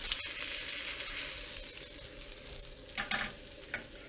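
Butter and oil sizzling in a hot cast-iron pan, a steady hiss that slowly fades, with a couple of light clicks about three seconds in.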